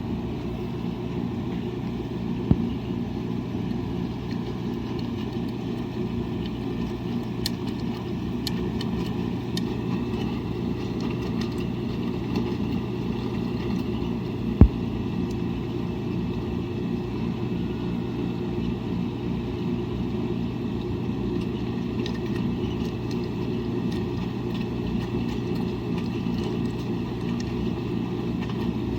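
Washing machine running with a steady low motor hum. There is a sharp click about two and a half seconds in and a louder knock near the middle.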